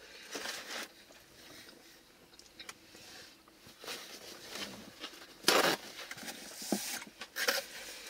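A man chewing a mouthful of cheesesteak sandwich, with small wet mouth clicks and smacks. A brief louder burst of noise comes about five and a half seconds in, and a paper napkin rustles near the end as he wipes his mouth.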